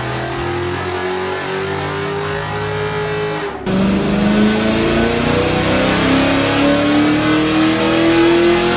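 Car engine revving hard, its pitch climbing steadily; the sound cuts off abruptly about three and a half seconds in and a second engine pull climbs again in revs.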